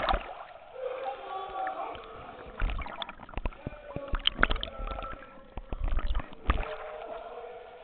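Irregular splashing and sloshing of water from a swimmer's strokes, with low dull thumps in the middle stretch and faint voices in the background.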